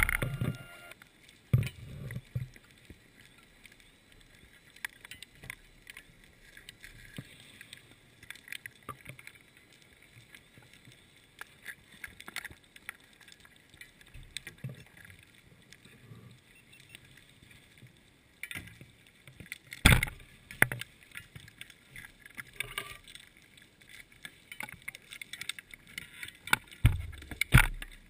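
Quiet underwater sound with scattered faint clicks and a few sharper knocks, the loudest about twenty seconds in and again near the end.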